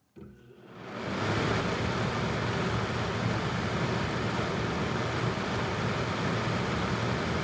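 Air from a fan set to high blowing on an NTG-3 shotgun microphone in a fur windscreen, heard as a steady rush of wind and fan noise, with the recording edited for the best sound. It comes in just after the start and rises to full level within about a second.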